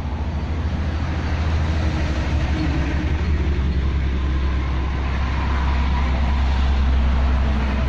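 A steady low rumble with a hiss over it, loud throughout and slowly growing louder.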